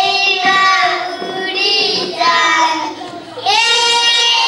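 Young boys singing together, with a long held note starting about three and a half seconds in.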